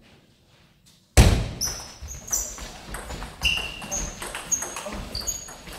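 Near silence for about a second, then a table tennis rally starts abruptly: the ball knocking off bats and table in quick succession, with short high squeaks of shoes on the sports-hall floor, echoing in a large hall.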